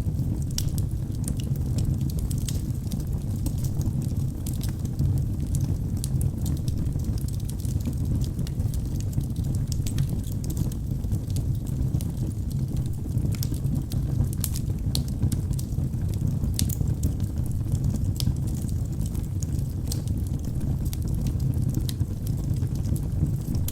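Wood fire burning in a fireplace: a steady low rumble of the flames with frequent, irregular sharp crackles and pops from the burning logs.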